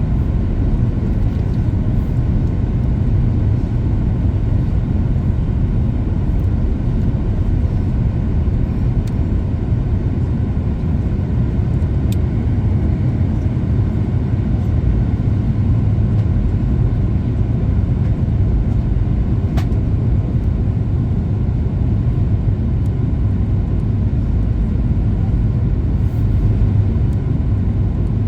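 Steady low cabin roar of a Boeing 737 MAX 8 on its descent, the CFM LEAP-1B engines and rushing airflow heard from inside the passenger cabin. A couple of faint ticks sound about twelve and twenty seconds in.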